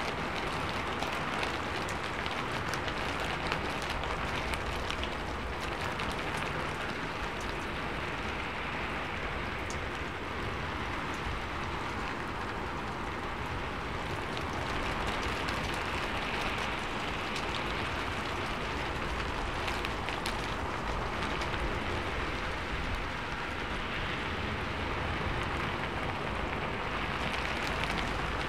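Steady rain drumming on a sheet-metal roof: a dense, even patter with individual sharper drop ticks scattered through it.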